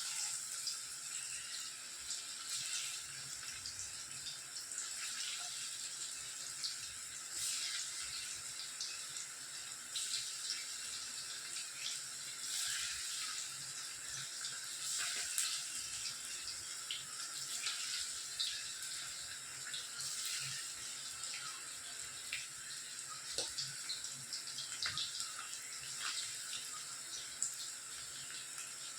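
Marinated chicken 65 pieces deep-frying in hot oil in a kadai: a steady sizzling hiss with frequent small crackles and pops.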